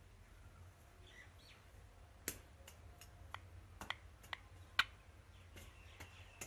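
Indian ringneck parrot making a series of sharp, irregular clicks, with a few faint chirps early on.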